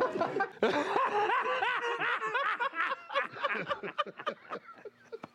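Several people laughing and chuckling together, the laughter thinning out and dying down toward the end.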